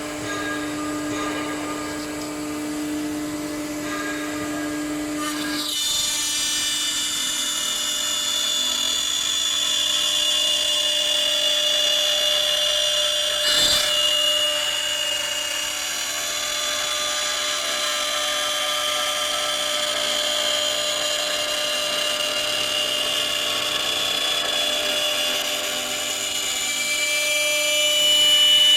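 AccTek CNC machine running: a steady hum, then about six seconds in a high-pitched, drill-like whine with several tones sets in and holds. A short knock sounds near the middle.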